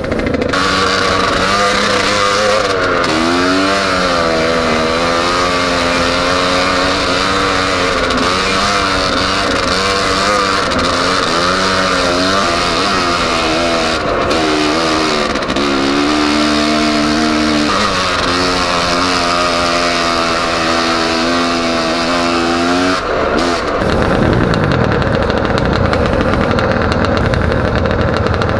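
Off-road motorcycle engine heard on board while riding a dirt trail, its pitch rising and falling again and again with the throttle. About 23 seconds in the changing note stops and the sound turns rougher and noisier, with other motorcycles running nearby.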